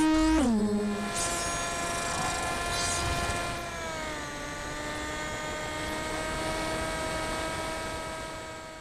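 Multicopter's electric motors and propellers whining steadily, heard through its onboard camera. The pitch rises and falls briefly at the start, dips about four seconds in, then holds and fades out at the end.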